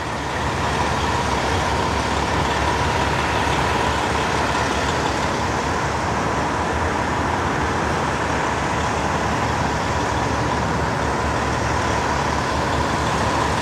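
Steady heavy-vehicle noise: a constant engine-and-traffic rumble with a faint steady whine over it, unchanging throughout.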